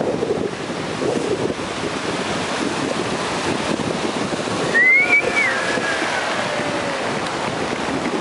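Ocean surf washing in around waders in the shallows, with wind buffeting the microphone. About five seconds in comes one short high-pitched squeal that rises and falls, louder than the surf.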